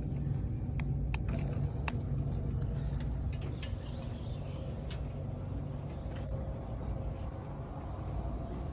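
Motorized window shades lowering: a steady low motor hum, with a few sharp clicks in the first two seconds and a faint whine joining about halfway through.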